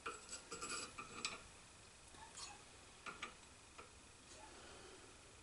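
Faint metallic clicks and light taps as the inner race of a taper roller bearing, with its rollers and cage, is worked down over a steel mill spindle by hand. The clicks cluster in the first second or so, with a few single ones around the middle.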